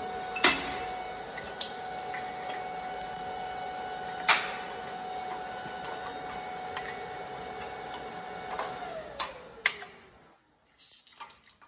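A steady motor hum with a whine that winds down and stops about nine to ten seconds in, like a machine spinning down after being switched off. A few sharp metallic clicks and knocks come through it from parts being handled at a bench vise.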